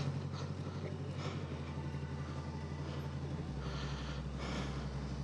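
Motorcycle engine idling, low and steady.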